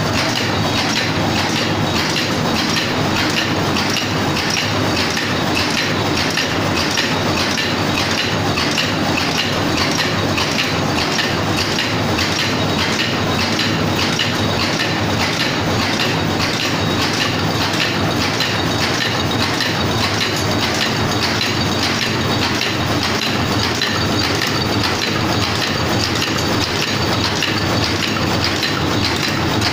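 High-speed paper cup making machine running, a steady mechanical clatter of its rotating turret and forming stations, with clicks repeating at a fast, even rhythm.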